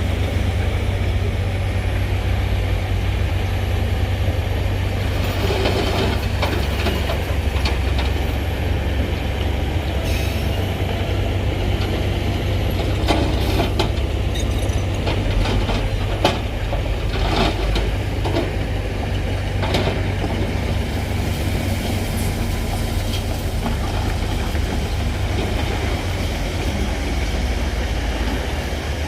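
Heavy diesel earthmoving machinery running with a steady low rumble, with scattered metallic clanks and squeaks over it, most of them in the middle of the stretch.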